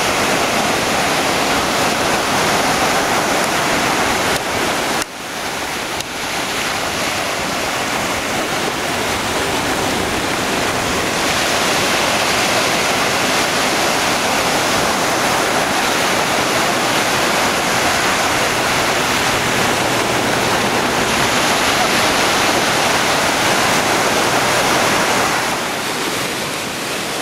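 Sea surf washing onto the shore, a loud, steady rush of breaking waves.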